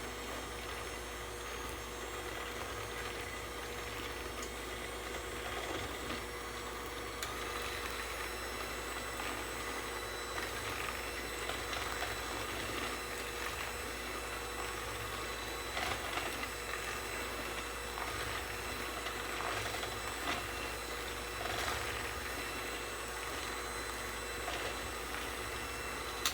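Small electric hand mixer running steadily, its beaters whirring through the lemon bar filling of eggs, sugar and lemon juice as it is beaten smooth.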